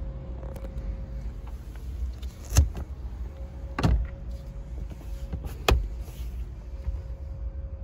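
Third-row seat back of a Toyota Highlander being folded and moved, giving three sharp clunks of the seat frame and latch over a steady low rumble.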